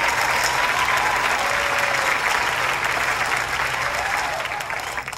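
Crowd applauding, with a few voices calling out over the clapping, fading away near the end.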